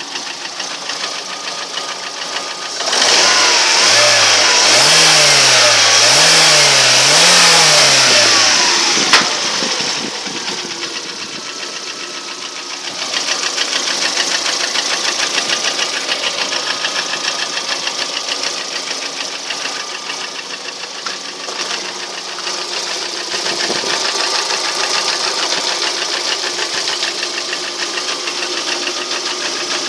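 Lada Priora's four-cylinder petrol engine running with a regular knock, the unexplained internal-combustion-engine knock the owner is chasing. About three seconds in, it is revved up and back down three times in a row, louder. It then settles back to a steady run.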